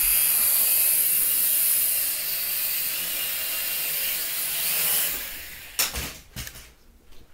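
Toy quadcopter's four small electric motors and propellers whining steadily at high pitch in flight, winding down about five seconds in, followed by a few sharp knocks.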